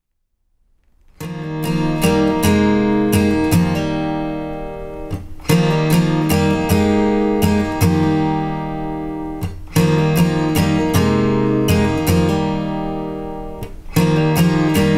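Solo acoustic guitar playing a repeating chord pattern. It begins about a second in, and the phrase starts again roughly every four seconds.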